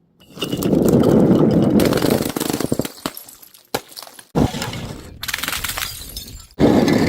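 Glass bottles smashing, with shards crackling and crunching as they scatter, in three separate edited takes: a long one starting about half a second in, a shorter one a little after four seconds, and another that starts abruptly near the end.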